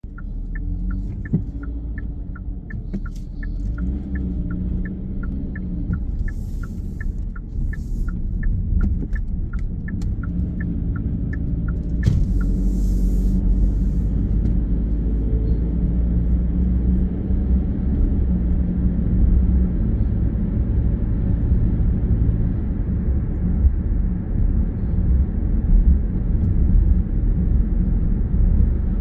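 Low, steady engine and tyre rumble heard from inside a moving car, with a turn-signal indicator ticking evenly about two to three times a second for the first twelve seconds or so. The ticking stops and the rumble gets louder as the car picks up speed.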